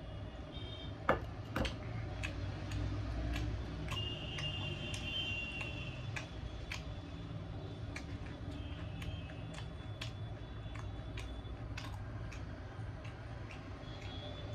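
Eating sounds: sharp smacking clicks of chewing at irregular intervals, the loudest about a second in, over a steady low hum.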